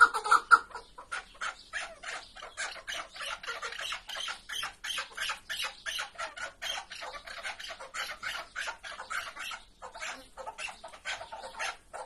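Caged chukar partridge calling: a fast, steady run of short clucking chuk notes, several a second, louder for the first half-second and briefly pausing near the end.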